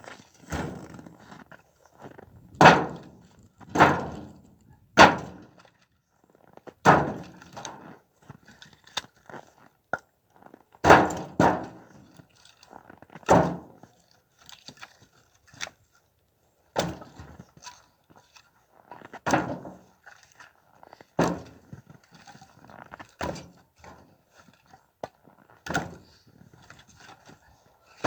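Split firewood logs knocking against each other as they are handled and tossed onto a pile: about a dozen sharp wooden thunks at uneven intervals, with lighter clatters in between.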